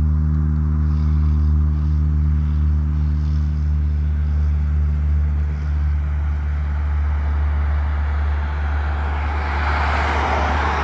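Aircraft engine noise at the airfield, a rushing sound that grows steadily louder over the last few seconds, over a steady low engine hum that fades about halfway through.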